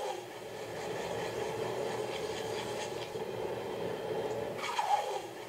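Red-hot mild-steel center punch held in a brine quench, sizzling steadily as it cools, with a short falling tone near the end. This is the sound that normally means the steel was at a good temperature and has hardened.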